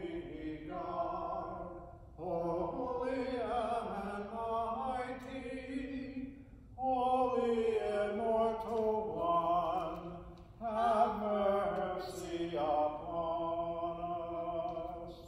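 Unaccompanied hymn sung by a couple of voices in long, slow held notes, four sung lines with short breaths between them.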